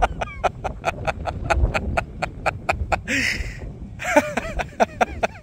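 A person chuckling softly under their breath in quick, even pulses, then letting out a breathy laugh about three seconds in.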